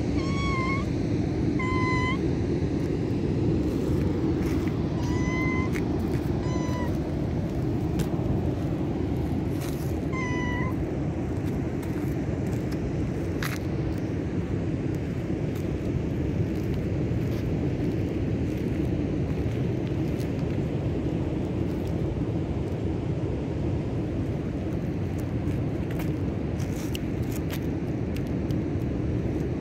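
Tortoiseshell cat meowing: five short meows in the first half, over steady low background noise.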